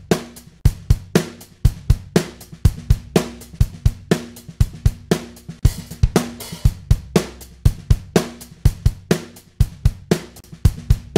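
Drum-kit loop playing back from the recording program, unprocessed: a steady beat of kick, snare and hi-hat, with a cymbal wash a little past halfway. This is the dry loop with no pedal effects on it.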